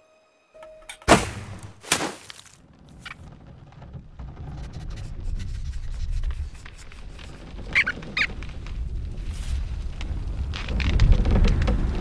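Cartoon sound effects: two sharp impacts about a second apart, then a low rumbling noise that swells toward the end, with a couple of quick clicks midway.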